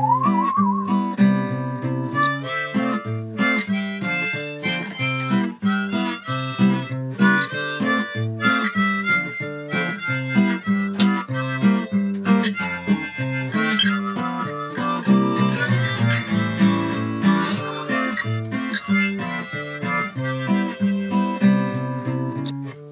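Instrumental music: acoustic guitar picking with a harmonica playing the tune.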